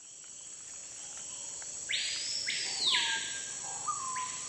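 Insect night ambience fading in: a steady high-pitched insect drone, with two short rasping hisses about two seconds in.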